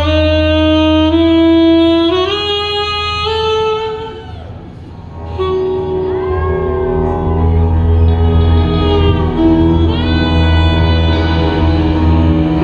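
Live band playing a slow song: a long, held lead melody climbs in steps over a steady low bass note, drops back briefly about four seconds in with some gliding notes, then the full band returns.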